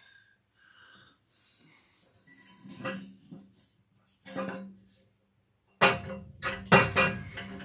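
Metal clanking and scraping as a steel long-tube exhaust header is worked into place in the engine bay: a few separate knocks early, then a loud burst of rapid clanks about six seconds in.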